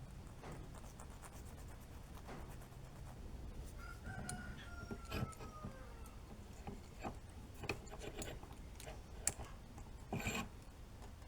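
Scattered light clicks and knocks of small parts being handled, the loudest a cluster about ten seconds in, with a distant rooster crowing once about four seconds in.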